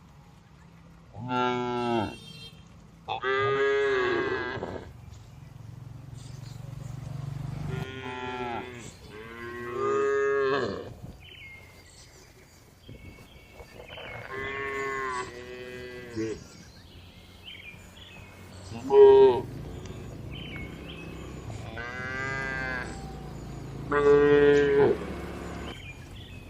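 Cows mooing repeatedly, about eight separate calls of half a second to two seconds each, with the loudest a short moo about two-thirds of the way through.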